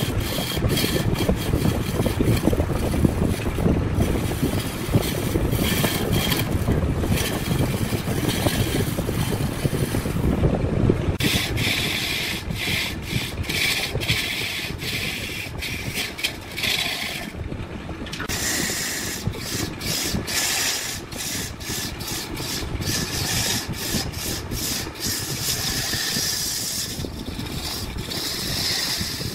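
Woodworking tool noise: wood being scraped, rasped and rubbed, with many sharp clicks. The sound changes abruptly about 11 s in, from a heavier low rumble to a brighter, hissing scrape.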